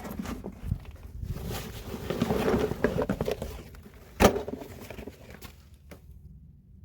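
Scuffing and rustling of a person moving on knee pads through a crawlspace, with one sharp knock about four seconds in, then it goes quiet.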